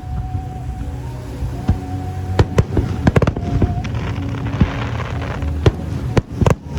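Aerial fireworks bursting: a string of sharp bangs with a quick cluster around three seconds in, crackling about five seconds in, and more bangs near the end, over steady music.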